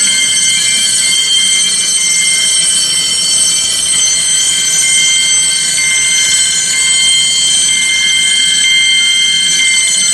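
Several electric fire alarm bells ringing at once, loud and steady without a break, set off in a fire alarm system test.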